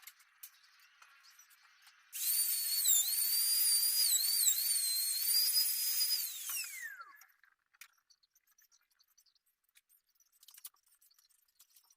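A small high-speed electric power tool starts about two seconds in and runs with a high-pitched whine for about five seconds, its pitch dipping briefly several times as it takes load. It is then switched off and winds down with a falling whine, leaving faint clicks and knocks.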